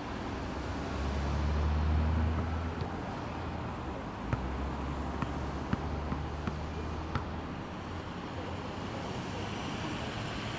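Street traffic with a motor vehicle's engine humming low, loudest in the first few seconds and again in the middle. A few light clicks sound in the middle.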